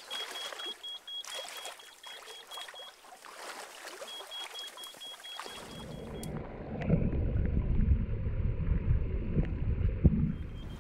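Stream water splashing and trickling around people wading, with a high, rapid beeping running in stretches, which fits a backpack electrofisher that is switched on. About halfway in, the sound turns to a louder, deep, muffled rush of water heard underwater.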